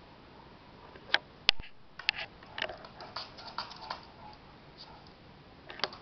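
Bulldog's claws clicking irregularly on a hardwood floor as it walks. Two sharper clicks come about a second in.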